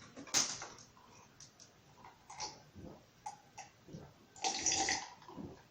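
Close-miked mouth noises of someone eating: a series of short wet clicks and smacks, with a longer, louder noisy stretch about four and a half seconds in.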